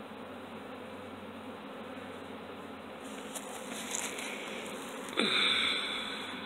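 A freshly shaken honeybee swarm buzzing steadily, the bees flying around the hive box they are being coaxed into. About five seconds in a louder buzz comes in suddenly close by and drops in pitch.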